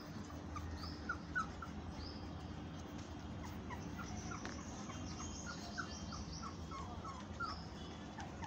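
Boxer puppies squeaking and whimpering in short, high little cries as they play-wrestle, in bunches about a second in and again through the second half. A bird calls over and over in the background, about once a second.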